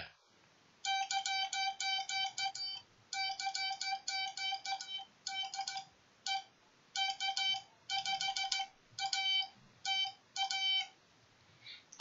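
MFJ-557 Morse code practice oscillator beeping at one steady pitch as its straight key is worked by hand, sending CW as dots and dashes. The sending starts about a second in, pauses briefly around the middle and stops near the end.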